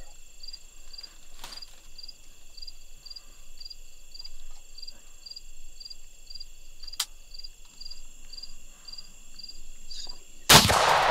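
Insects singing steadily, with a high chirp about twice a second. Near the end a single loud rifle shot from an AR-15 chambered in .350 Legend, fired from inside a hunting blind, rings on after it.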